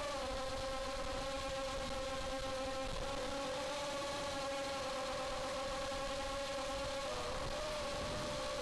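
ZMR250 racing quadcopter's four 2204 2300 kV brushless motors and propellers buzzing steadily in flight, heard from on board. The pitch holds even, wobbling briefly about seven seconds in as the throttle changes.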